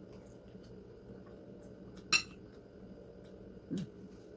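A metal fork clinks sharply once against a ceramic plate about two seconds in, ringing briefly, with a few faint small cutlery clicks around it. A short low sound comes near the end.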